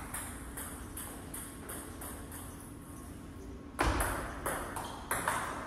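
Table tennis ball clicking off the table and the players' rubber-faced bats as a new point starts about four seconds in, with a sharp click and then four more about every half second. Before that there is only faint, evenly spaced ticking.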